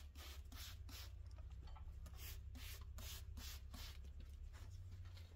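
Spray bottle squirting soapy water onto a tire's bead to lubricate it for mounting: a rapid series of short, faint hissing sprays, about three a second.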